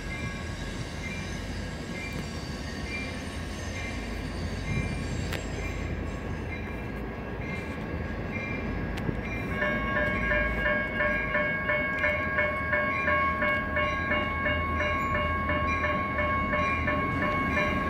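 Railroad crossing signals' General Signals Type 1 electronic bells start up about halfway through, ringing loudly about twice a second as the crossing activates and the gates come down. Before that a fainter repeating chime is heard over a low steady rumble.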